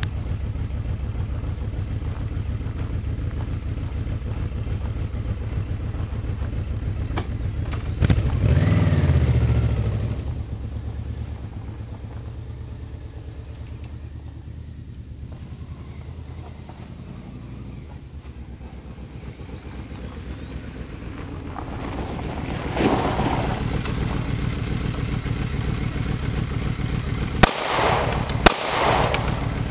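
Large touring motorcycle engine idling, then revving as it pulls away and fading into the distance; it rides back in and idles again. Near the end two sharp handgun shots crack about a second apart.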